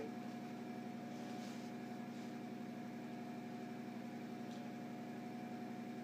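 A steady machine hum from a running room appliance, holding an even pitch throughout, with a few faint soft scrapes of wire being worked by hand with pliers.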